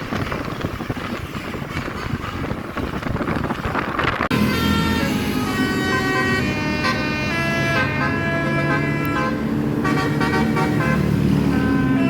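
Engine and street noise. About four seconds in, a telolet basuri multi-tone bus horn cuts in abruptly, playing a tune in steady, stepped notes.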